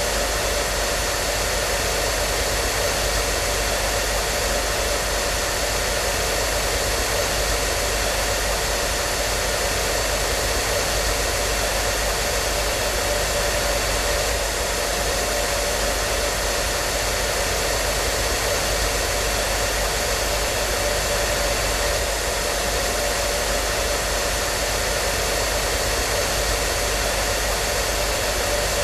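Hair dryer running steadily: an even rushing hiss of its fan and airflow with a faint steady whine in it.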